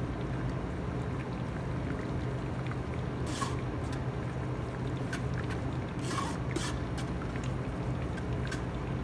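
Metal ladle pressing thick blended soup through a stainless mesh strainer, with a few short scrapes of the ladle on the mesh about three seconds in and again around six seconds in, over a steady low hum.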